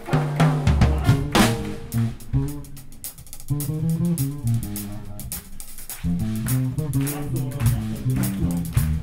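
Live jazz-funk band: an electric bass guitar plays a moving bass line over a drum kit while the horns rest. It thins out for a few seconds in the middle and fills out again about six seconds in.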